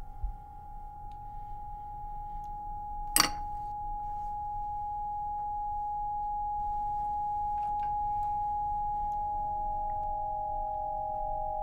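A steady high-pitched pure tone that slowly swells in loudness. A single sharp click or knock cuts across it about three seconds in, and a second, lower tone joins near the end, the two sounding together.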